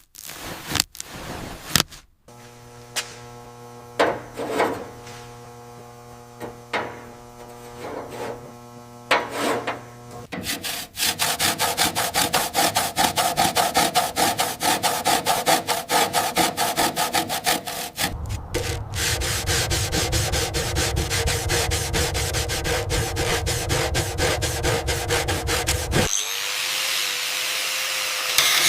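Restoration workshop work sounds. In the first ten seconds, separate knocks and clicks sound over a steady hum. From about ten seconds in come rapid, continuous rubbing strokes of sanding, and a steady whirring tool takes over in the last couple of seconds.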